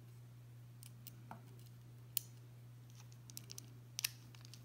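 Faint scattered metallic clicks and ticks of a small screwdriver working the screws of a titanium knife handle scale, the sharpest about two seconds in and a quick pair near the end, over a steady low hum.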